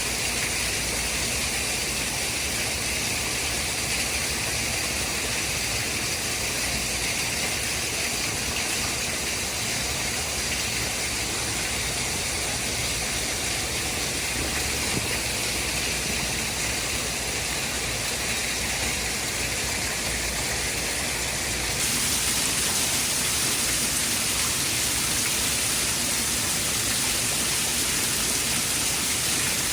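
Continuous white noise: a steady, even hiss that turns brighter and a little louder about three-quarters of the way through.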